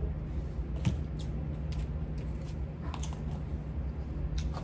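Scattered light clicks and rustles of takeout food boxes, plates and utensils being handled at a table, over a steady low hum.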